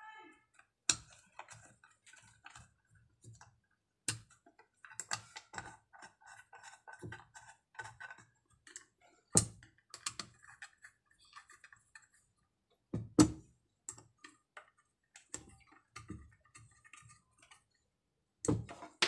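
Hands handling and fitting the parts of a speaker compression driver on a wooden board: irregular light clicks and taps of plastic and metal, with several louder knocks.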